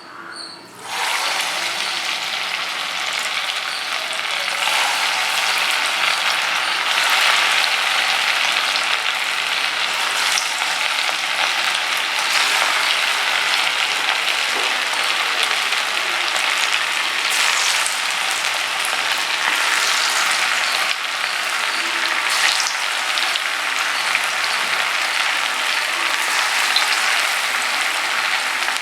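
Batter-coated seer fish pieces frying in hot oil in a pan: a steady sizzle that starts suddenly about a second in and grows louder a few seconds later.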